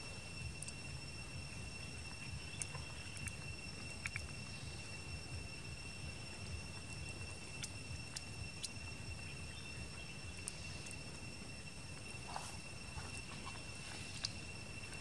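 Steady insect chorus: a continuous high buzz held on one pitch, with scattered faint clicks and a low rumble underneath.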